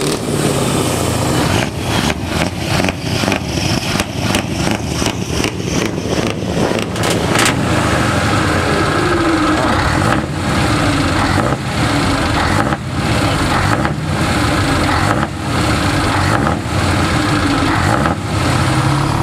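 Heavy truck diesel engine running loud through open exhaust pipes, revved in repeated bursts. The revs dip briefly several times a second at first, then about once a second later.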